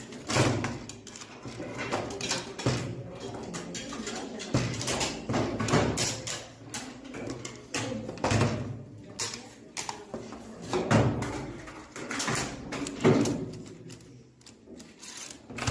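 Irregular clacks and knocks of rifles being handled, metal and wooden parts striking against each other.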